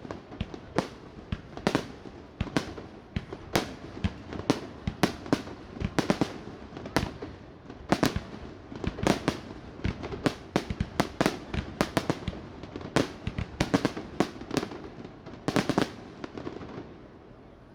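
Fireworks display: a rapid, irregular series of bangs and pops, about two or three a second, over a continuous crackle. The bangs stop just before the end.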